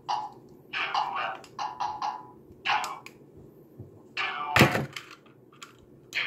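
Close handling noise of a small plastic toy figure being turned and fiddled with in the hands, in short irregular rustling and rubbing bursts, with one loud thump about four and a half seconds in and a few light clicks after it.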